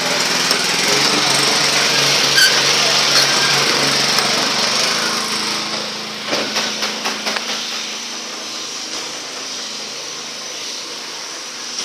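A motorised construction tool or machine running steadily, easing off about six seconds in, followed by a quick run of knocks.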